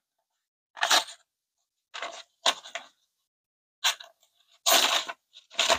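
Swisstech Gerundet folding pocket knife slicing into a sheet of notebook paper with its untouched factory edge: a series of short, papery slicing strokes with brief silences between them.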